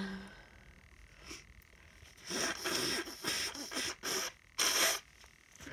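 A person with a sniffly, tickly nose sniffing hard through the nose, in four noisy bursts starting about two seconds in.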